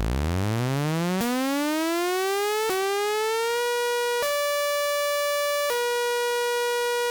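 Electronic siren tone, a buzzy, synthetic-sounding wail. It winds up in pitch over about three and a half seconds, then alternates between a high and a low tone every second and a half or so, in a hi-lo pattern.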